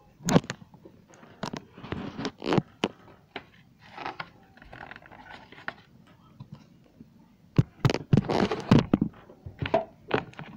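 Irregular clicks and knocks with scraping and rustling, as of hard objects being handled and set down, busiest about eight seconds in.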